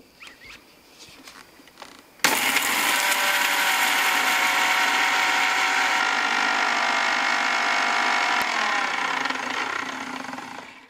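Electric kitchen mixer grinder dry-grinding mustard seeds with garlic, ginger and whole spices to a fine masala. The motor starts suddenly about two seconds in and runs steadily, then is switched off about three quarters of the way through and winds down with falling pitch.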